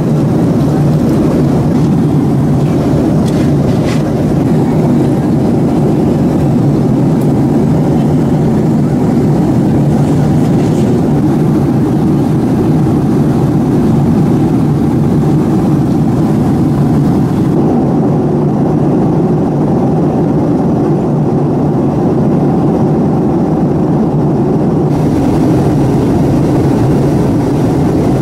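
Steady, loud cabin noise of a Boeing 767-300ER airliner in flight: an even, low rush of engine and airflow noise.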